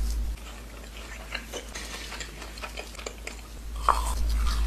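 Crispy fried cheese snack being chewed: a quick run of small, crackly crunches. A low hum comes in near the end, where it is loudest.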